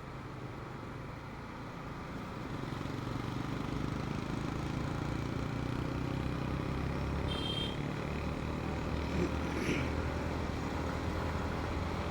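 Motorcycle riding sound heard on a helmet-mounted mic: a steady engine hum under rushing wind noise, growing a little louder about two seconds in. A short high-pitched beep-like tone comes about seven seconds in.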